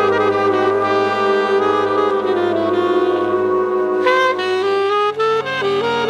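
Jazz orchestra music: saxophone and brass playing over held chords and a steady bass note. A new, brighter phrase comes in about four seconds in, and the bass shifts to a new note about a second later.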